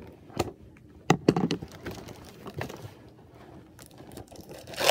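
Hands rummaging in a cardboard box and handling doll packaging: irregular clicks, taps and light scrapes, with a few sharper knocks about a second in and near the end.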